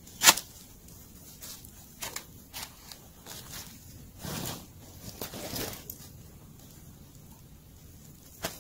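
Outdoor gear being handled: a sharp knock about a quarter second in, then rustling and light knocks as things are pulled out of a backpack.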